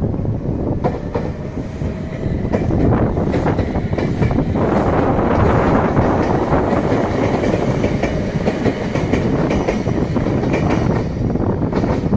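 Red Meitetsu electric train running past and pulling away, with a faint rising motor whine in the first seconds, then a louder rumble with wheels clattering over the rail joints.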